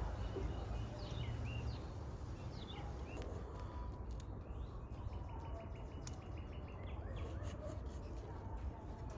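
Outdoor ambience: a steady low rumble like wind on the microphone, with a few short bird chirps in the first few seconds and some faint ticks later on.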